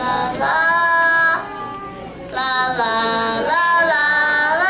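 Young girls singing together in long held notes, breaking off briefly about a second and a half in before starting the next phrase.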